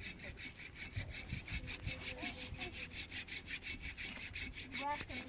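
Rapid, even rasping strokes, about six a second, like a saw working through wood, with a brief high voice near the end.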